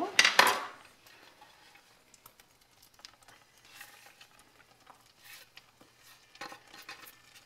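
A short scrape of chopped spring onion being swept off a wooden chopping board, then beaten eggs setting in a frying pan with a faint sizzle and scattered light ticks as the onion pieces are dropped over them.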